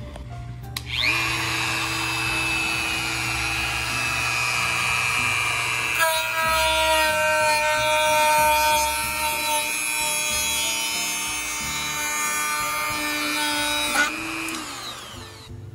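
Dremel rotary tool cutting across the aircraft's door frame. It spins up with a rising whine about a second in, and its tone shifts about six seconds in as it runs. It winds down with a falling whine near the end.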